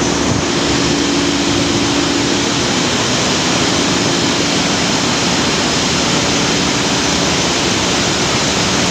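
Loud, steady machinery din in a bulk carrier's engine room, with a steady low hum underneath that fades a few seconds in.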